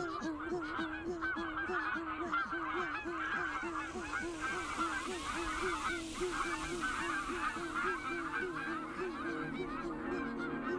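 A flock of geese calling: many overlapping, rapidly repeated calls throughout, over a low steady wavering tone.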